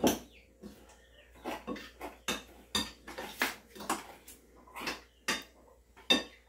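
Metal spoons clinking and scraping against metal pots, pans and plates as food is served: about a dozen sharp clinks at uneven intervals, the loudest right at the start and another near the end.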